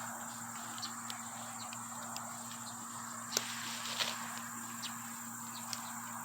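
Goats browsing on a tree: scattered crisp snaps and rustles of leaves and twigs being torn off and chewed, the two loudest a little past the middle, over a steady outdoor hiss with a faint high tone.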